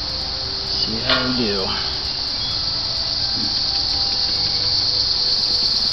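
Steady, high-pitched insect chorus, like crickets, with a brief pitched call that rises and falls about a second in.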